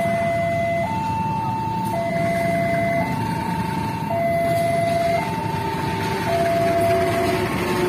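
Railway level-crossing warning alarm sounding its two-tone electronic signal, stepping between a lower and a higher tone about once a second. Under it is the low rumble of an approaching diesel passenger train.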